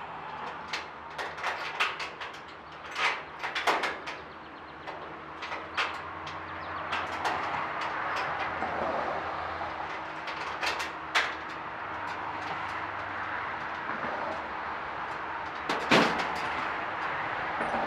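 Irregular knocks, clicks and clanks of hands-on work mounting an evaporative cooler, with a cluster of knocks about three to four seconds in and a louder bang near the end, over a faint steady hum.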